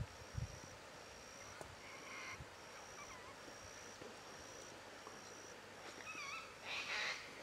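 Faint bush ambience: a high chirp repeats about twice a second, with a few short wavering calls and a brief rustle near the end.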